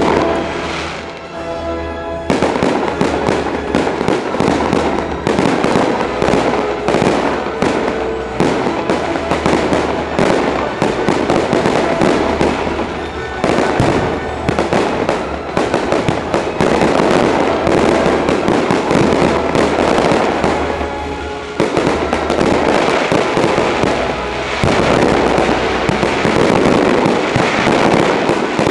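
Aerial fireworks shells bursting in a dense barrage: many bangs and crackles in quick succession, thickening about two seconds in.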